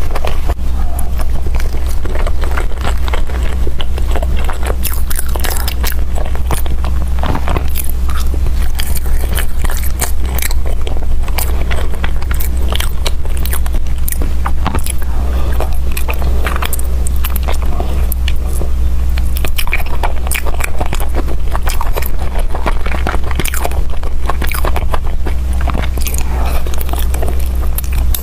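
Close-miked mouth sounds of a person chewing soft braised chicken and rice: wet smacks and clicks of biting and chewing, irregular and continuous, over a steady low hum.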